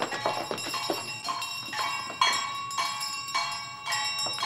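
A bell struck again and again, roughly once or twice a second, each stroke ringing on briefly before the next.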